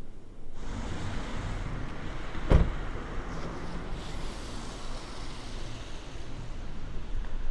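Steady vehicle-like rushing noise that starts abruptly about half a second in, with one loud thump about two and a half seconds in.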